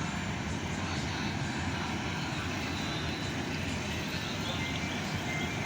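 Airplane engines running at an airport: a steady noise with no distinct separate sounds.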